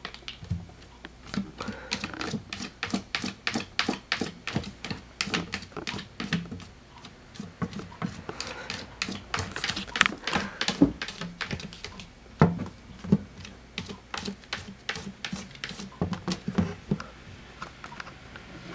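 Cat scratching and digging in paper-pulp pellet litter inside a hooded plastic litter box: irregular scratchy rustles, several a second.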